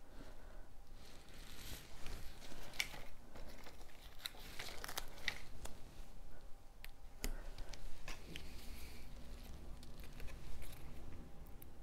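Cardstock cutouts rustling as they are handled and pressed onto a paper card, with scattered small clicks and taps.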